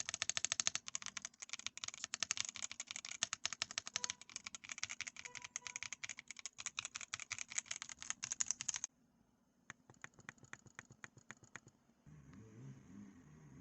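Keys and knob of a CIDOO V65 aluminium mechanical keyboard clicking rapidly in a dense train that stops suddenly about nine seconds in. A dozen sparser clicks follow, then a faint low rumble near the end as the keyboard is shaken.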